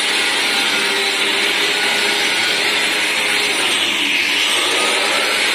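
Electric drywall sander with dust extraction running steadily against a plastered wall: a constant motor whir under a strong rush of suction through its hose.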